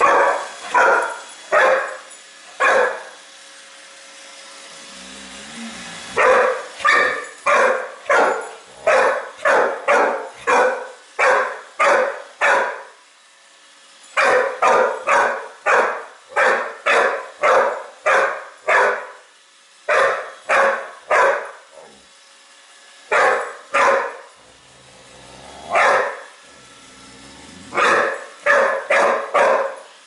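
A dog barking at a Roomba robot vacuum, in bouts of quick barks about two a second, broken by short pauses.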